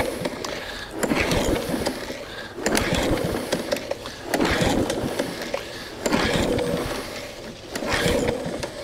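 Recoil pull-starter on a small overhead-valve lawnmower engine, pulled about six times, roughly every one and a half to two seconds. Each pull is a short whirring crank that dies away. The engine turns over but does not fire.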